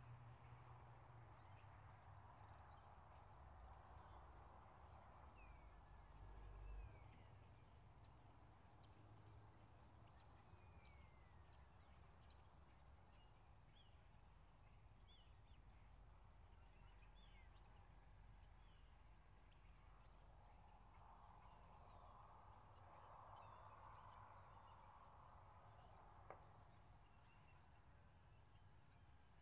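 Near silence with faint, scattered high chirps of small birds and a steady low rumble, plus a single sharp click about 26 seconds in.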